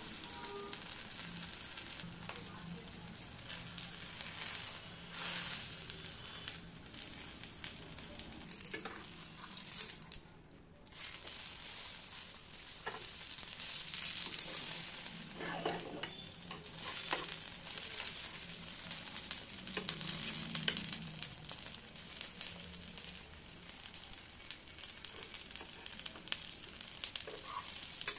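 Oil sizzling and crackling under a folded roti pizza frying in a nonstick pan, with occasional scrapes and presses of a plastic spatula against the pan. The sizzle drops away briefly about ten seconds in.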